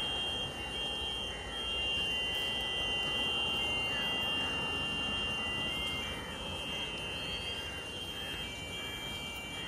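Distant jet airliner engines running: a steady rumbling haze with a high, steady whine over it, and a few faint short chirps in the second half.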